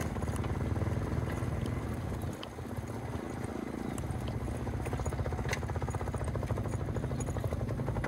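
Motorcycle engine running with a fast, even throb, dipping briefly about two seconds in before picking up again.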